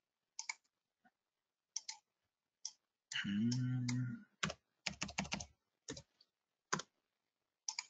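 Computer keyboard keystrokes: scattered single key presses, then a quick run of several keys about four and a half seconds in. A low steady hum lasting about a second comes just before the run.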